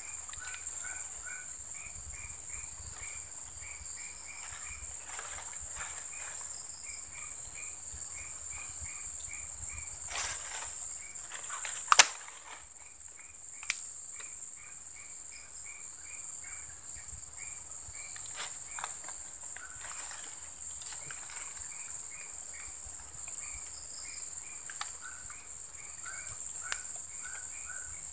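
Insects keep up a steady high-pitched drone while an animal repeats a short chirp in runs of about three a second. A single sharp click about halfway through is the loudest sound.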